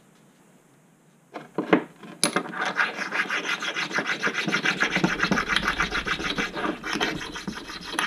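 Abrasive stone rubbed back and forth in quick, steady strokes over the top contact surface of a Proxxon PD 250/e mini lathe's compound slide, taking off burrs so the tool post seats flat. A couple of light knocks come about a second and a half in, before the rubbing starts.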